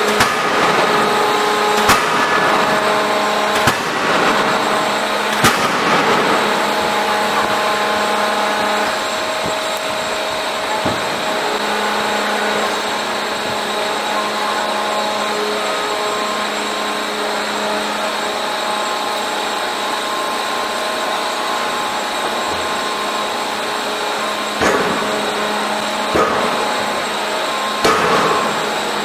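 Heavy hydraulic forging hammer striking a red-hot steel disc in its die, over a steady machinery hum. There are four sharp blows in the first six seconds, a long stretch of hum alone, then three more blows near the end.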